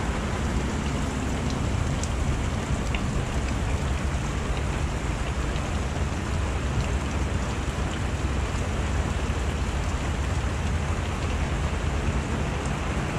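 Steady rain falling on a sailboat's deck and the dinghy hanging off its stern, an even hiss of drops with a low rumble underneath.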